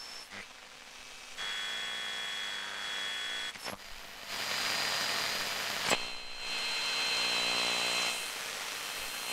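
Glitch sound effects of analog TV static: a hiss with a steady high whine and a buzz, switching abruptly a few times, with sharp clicks about three and a half seconds and six seconds in.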